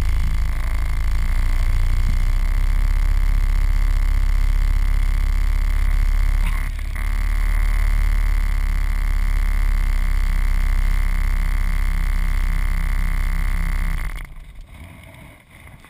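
Rushing wind on the camera and a steady high whine during a fast rappel from an aerial tram cabin, with a heavy low rumble and a short dip about halfway through. It cuts off suddenly about fourteen seconds in as the rappeller lands.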